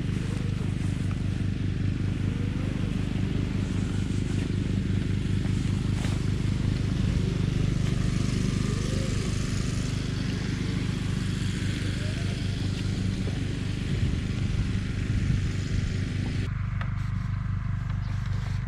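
An engine runs steadily with a low, pulsing drone.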